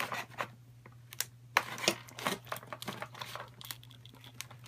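Tape being pulled and torn off a cardboard model box, with irregular crinkling and rustling of the packaging and sharp clicks as it is handled.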